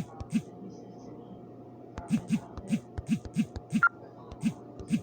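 Irregular typing taps, a few per second, each a soft thud with a sharp click, pausing for about a second and a half early on.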